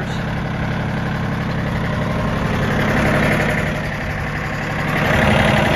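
John Deere 870 compact tractor's three-cylinder diesel engine running steadily while its hydraulics work the rear three-point hitch. The engine sound swells briefly about three seconds in and again near the end.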